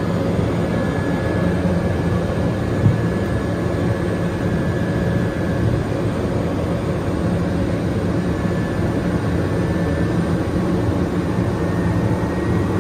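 Pilatus PC-12 NGX's single PT6E turboprop engine and propeller running with a steady, even drone, heard from inside the cockpit, with one brief knock about three seconds in.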